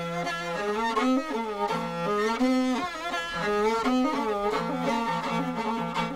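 Morin khuur (Mongolian horsehead fiddle) bowed solo, playing a wavering melody with slides between notes over a steady low drone held on the other string.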